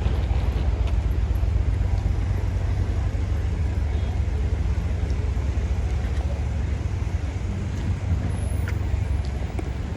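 City street traffic: a steady low rumble of passing cars, with a hiss of tyres on wet asphalt.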